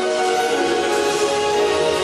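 Live stage-show music from a rock band, playing sustained held chords.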